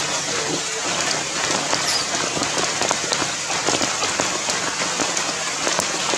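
Heavy rain falling steadily, a dense patter of drops.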